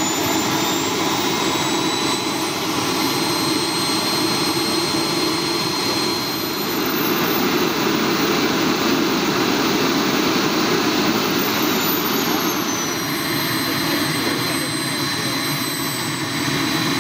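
Small model gas turbine (a B300F of about 320 N thrust) running on the ground with a steady rushing whine. The whine rises in pitch about six seconds in and eases back down a few seconds later.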